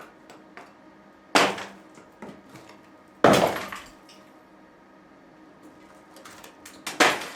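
Loose stones and rubble pulled from a failing stone arch falling and crashing down three times, with small clicks and rattles of debris in between.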